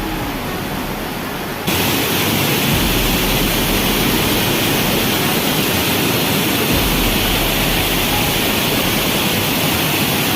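Loud, steady rush of water from heavy rain and flowing runoff. The noise jumps louder and more hissy about two seconds in, then holds steady.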